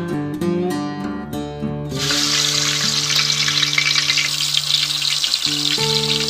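Chicken pieces frying in hot oil in a pan: a loud crackling sizzle starts suddenly about two seconds in as the meat hits the oil, and keeps on steadily.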